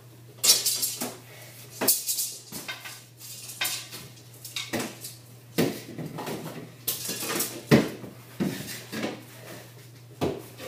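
A hockey stick and hard objects clacking and knocking on a concrete garage floor: a string of sharp, irregular clatters, over a steady low hum.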